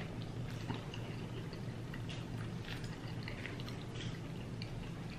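Quiet eating sounds: faint chewing and small scattered mouth and utensil clicks over a steady low hum.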